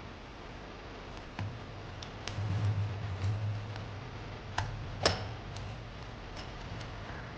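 A few sharp clicks and ticks from small parts being handled during camera repair, the loudest about five seconds in. A low hum runs under them for a few seconds in the middle.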